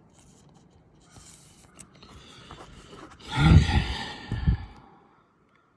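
Trading-card pack wrapper and cards being handled: scratchy rustling and scraping, then a louder burst of crinkling and handling noise about three and a half seconds in that stops abruptly.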